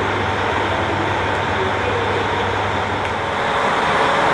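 JR Hokkaido KiHa 40 diesel railcar idling steadily as it stands at the station, a constant low engine hum that grows a little louder near the end.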